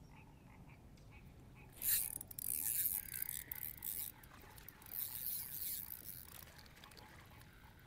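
A spinning reel being cranked quickly to reel in line, its gears and rotor running with a clicking, scraping rattle. It starts about two seconds in and goes on in several spells, with short breaks, until a little before the end.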